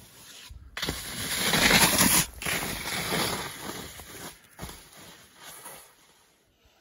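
Skis sliding and scraping over snow, with wind rushing over the microphone. It starts abruptly under a second in, is loudest around two seconds, and fades away near the end.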